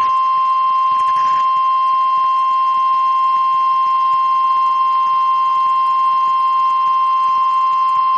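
NOAA Weather Radio warning alarm tone: a single steady 1050 Hz tone, held unbroken. It is the attention signal that a warning message is about to follow.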